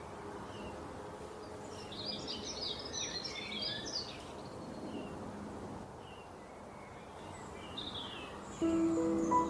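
Birds chirping in short bursts over a steady background hiss, with music coming in near the end.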